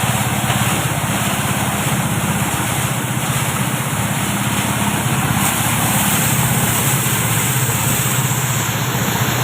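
Engine-driven rice threshing machine running steadily, its motor humming at a constant speed under a continuous rushing noise.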